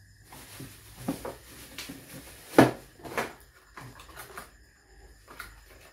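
Cardboard packaging being handled: a small box lifted out of a carton and opened, with rustling and irregular knocks, the loudest a sharp knock about two and a half seconds in.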